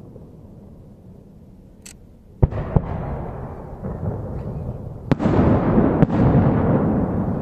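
Aerial firework shells bursting: two sharp bangs about two and a half seconds in, then two more about five and six seconds in, each followed by a long rolling rumble that slowly fades.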